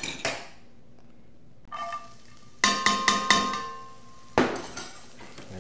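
Metal mixing bowl knocking and ringing against a cast-iron skillet as sliced onions are tipped into the pan: a run of sharp clanks from about halfway, with a ringing tone that hangs on, and one more knock a little before the end.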